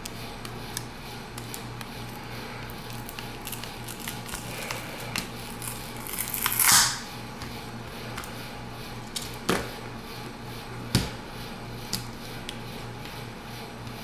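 Hands working the opened tablet as its taped pouch battery is pulled out and set down: small plastic clicks and taps, a short loud rustle about seven seconds in, and a few sharper knocks later, over a steady low hum.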